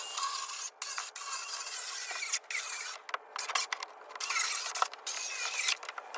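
Ridgid 18-volt cordless circular saw cutting through OSB sheeting in several bursts, stopping and starting again between passes.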